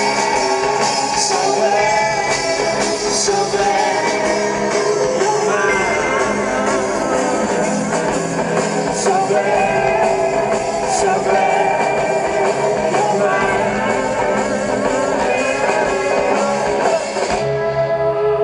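Live rock band playing loudly, with a singer's voice over guitars and drums. Near the end the drums and cymbals stop, leaving a held chord.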